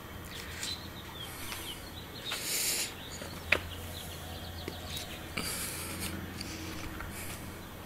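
Rustling and scraping of small plastic plant pots being handled, carried and set down on concrete, with one sharp click about three and a half seconds in.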